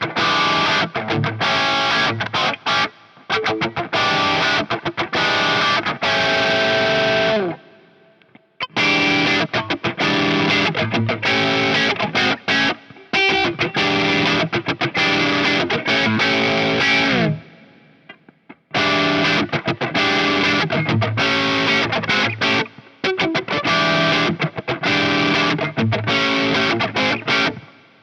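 Covenant Tradition T-SP electric guitar with humbucking pickups, played through distortion in three riffs full of sharp stops. Each riff ends in a falling slide that rings out and fades before the next begins.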